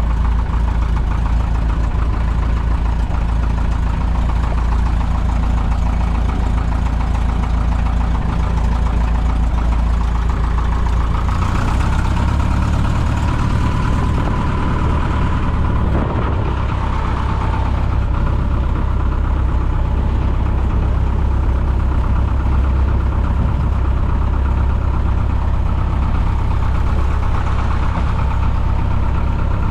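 Piper J-3 Cub's engine and propeller running steadily, heard from inside the cockpit; the engine note shifts about twelve seconds in.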